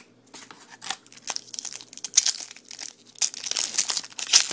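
Foil wrapper of a Topps Chrome baseball card pack being torn open and crinkled by hand: a run of sharp crackling rustles, loudest about two seconds in and near the end.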